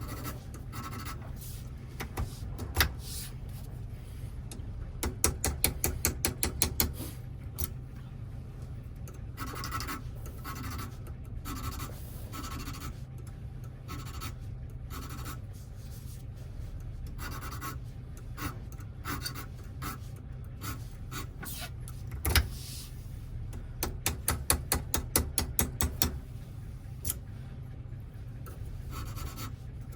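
Small metal clicks and rubbing from hand work on a Toyota door lock cylinder, with two quick runs of rapid clicking, one about five seconds in and one near the end, over a steady low hum.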